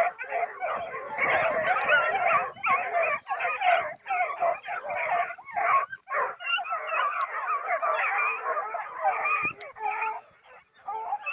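A pack of three-month-old Gascon blue griffon hound puppies giving tongue on a wild boar: many overlapping, wavering yelps and bays, dropping to a brief lull about ten seconds in.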